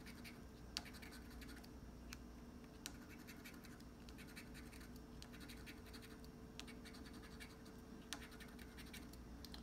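A coin scratching the latex coating off a scratch-off lottery ticket: faint, quick scraping strokes with small irregular ticks.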